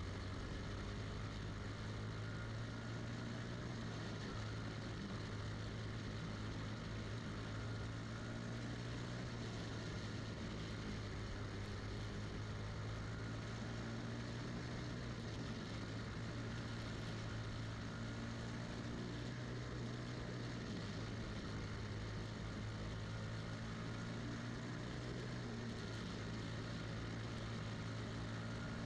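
Single-cylinder four-stroke Briggs & Stratton Animal kart engine running at a steady speed, heard from onboard the kart, its pitch holding level with no revving.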